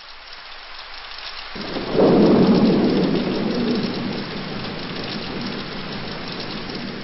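Thunderstorm sound effect: steady rain, with thunder coming in about a second and a half in, loudest just after, then rumbling away slowly under the rain.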